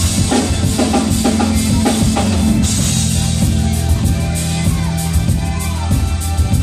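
Live band playing an instrumental passage: a drum kit with bass drum, snare and cymbals over a steady bass line and keyboard.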